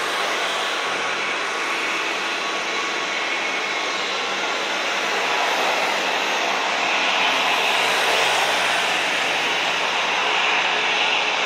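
Boeing 737 jet engines running loudly as the airliner rolls out after landing. A steady rushing noise swells about halfway through.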